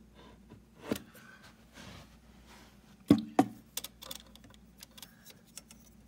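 Handling noise: a knock about a second in, two sharp louder knocks just after three seconds, then a run of light clicks.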